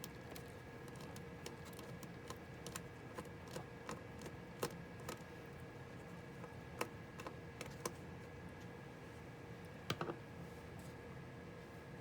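Scattered light clicks and taps of a screwdriver and hands on the laptop's plastic case and parts during disassembly, irregular, with a sharper double click about ten seconds in, over a faint steady hum.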